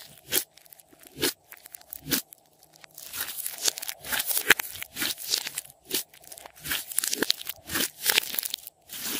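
Glossy slime being pressed, stretched and squeezed by hand, giving a few sharp separate pops at first and then dense, rapid crackling and popping from about three seconds in.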